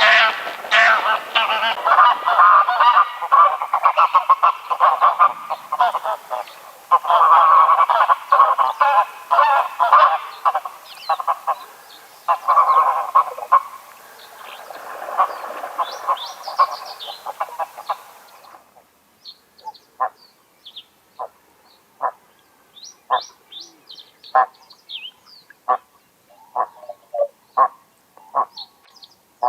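A flock of greylag geese honking, many loud calls overlapping in quick succession. About 18 seconds in the recording cuts abruptly to a much quieter one with scattered short calls and a few high chirps.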